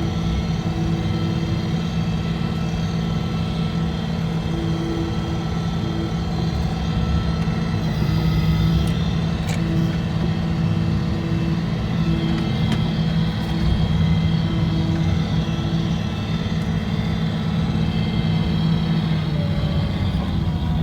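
Engine of a snow-plowing machine with a front bucket running steadily under load as it pushes snow, swelling a little now and then.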